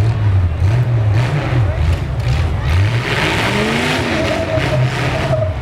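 Full-size demolition derby truck engines revving, rising and falling in pitch, with a short burst of hiss about three seconds in.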